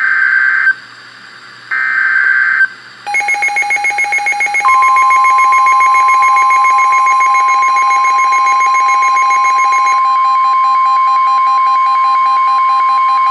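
NOAA Weather Radio emergency alert: two short screeching bursts of SAME digital header data, then a pulsing electronic alarm starting about three seconds in. About a second and a half later the steady single-pitch 1050 Hz warning alarm tone joins it and holds for about nine seconds, until just before the warning message is spoken.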